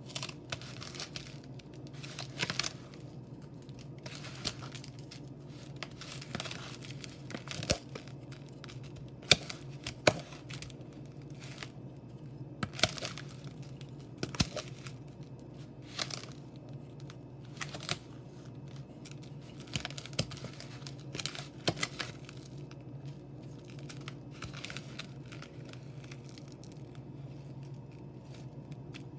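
Irregular crinkling, rustling and sharp clicks of breadcrumb-coated chicken pieces being handled and set into a baking pan, over a steady low hum.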